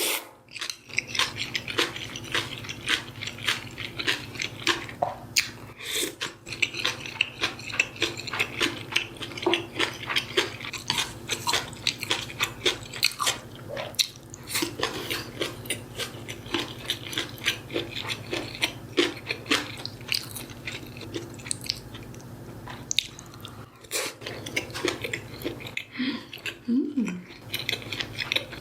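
Close-miked eating: steady mouth sounds of chewing and biting with small crunches, and now and then a light clink of cutlery or dishes.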